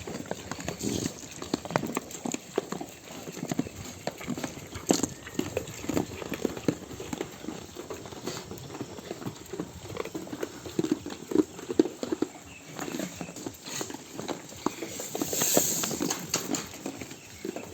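A flock of sheep moving about, many hooves clattering in an irregular patter of clicks, with a louder rustling hiss about three-quarters of the way through.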